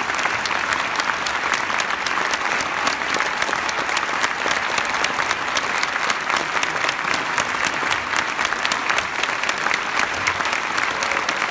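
Audience applauding steadily: a dense, unbroken patter of many hands clapping.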